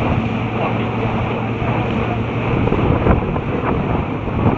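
Wind buffeting the microphone and water rushing and spraying past an inflatable banana boat towed at speed over choppy sea, with a steady low hum underneath in the first half.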